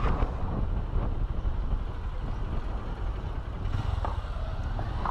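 Steady low rumble of outdoor city street noise, the hum of surrounding road traffic.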